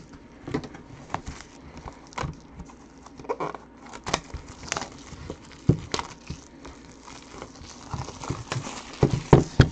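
Plastic shrink wrap being peeled and torn off a cardboard trading-card box by hand: irregular crinkling and crackling, loudest in a cluster near the end.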